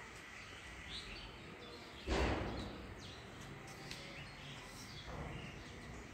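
Faint bird chirps over steady background noise, with a brief loud burst of noise about two seconds in.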